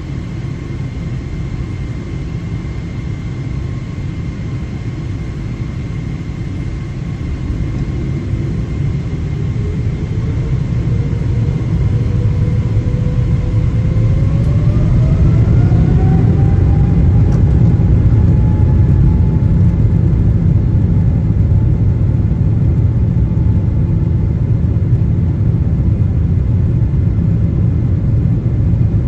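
Boeing 777-300ER's GE90-115B turbofan engines heard from the cabin, first as a steady rumble with a faint whine. From about a third of the way in, the whine rises in pitch and the rumble grows louder as the engines spool up to takeoff thrust. The engines then hold steady at full power.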